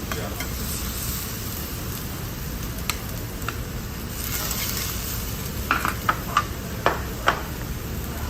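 Meat sizzling as it is stir-fried, with a cluster of sharp clinks from a metal utensil on the pan about six to seven seconds in.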